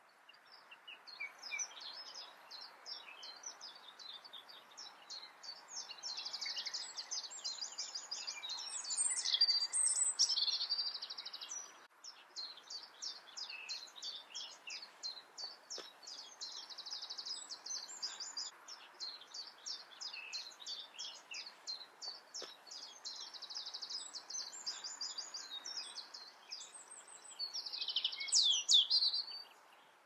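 European robin singing: a long run of rapid, high trills and warbled notes, with a short pause about twelve seconds in and louder phrases near ten seconds and near the end.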